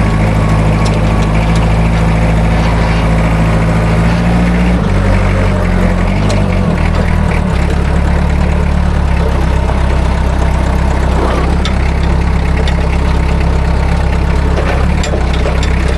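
An engine running steadily and loudly. Its low tone shifts lower about five seconds in and again a couple of seconds later, with a steady hiss above it.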